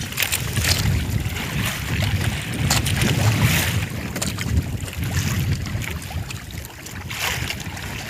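Wind buffeting the microphone over sea water lapping and splashing against the hull of a small outrigger boat, in washes that come and go, with a few light clicks and knocks from handling the longline.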